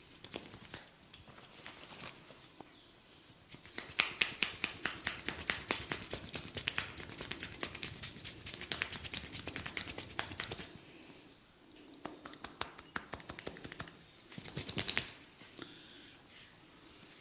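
Barber's hands working on a client's head and hair: a fast run of crisp clicks, about six a second, for several seconds, then a few scattered clicks and a short quick flurry near the end.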